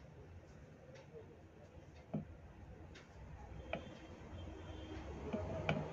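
A handful of light clicks and taps from a soldering iron and fingers working at a circuit board while resistors are soldered in. Under them is a low background hum that grows louder toward the end.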